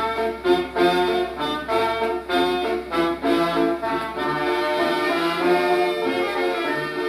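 Instrumental interlude of an old Japanese kayōkyoku song played from a 78 rpm shellac record, with no singing. The band plays short, choppy notes for the first few seconds, then longer held notes.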